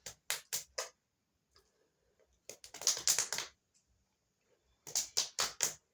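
Quick, sharp taps in three short bursts of several strokes each: about four near the start, a dense cluster in the middle and about five near the end.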